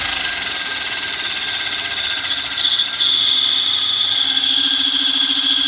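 Peugeot 307 running with a loud, steady high-pitched squeal, its 'singing', that grows stronger about three seconds in, with a lower hum joining a second later. The noise comes from the clutch: the release bearing has disintegrated, badly wearing the pressure plate and breaking its guide tube.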